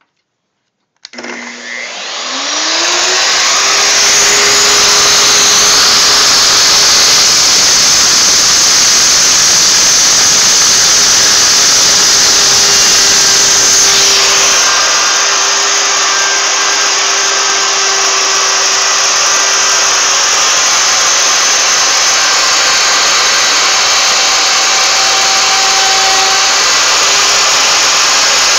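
Electric plunge router switched on about a second in, its whine rising as the motor spins up, then running steadily at full speed while its bit cuts a spiral groove into a turning wooden blank on a homemade router lathe.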